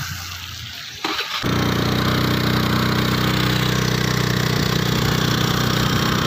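Scooter engine running steadily with an even low note, coming in abruptly about a second and a half in, over a steady hiss.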